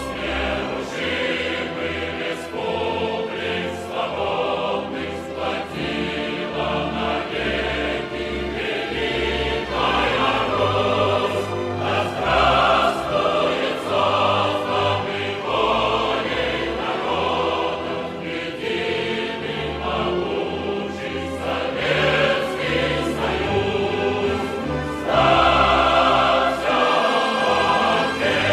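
Music: a choir singing over instrumental accompaniment with a steady bass line and regular sharp beats, swelling louder near the end.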